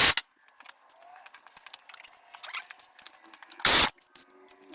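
Mechanical work on a snowmobile's rear suspension: scattered light clicks and knocks of tools and parts. About four seconds in comes a short, loud burst of hissing noise.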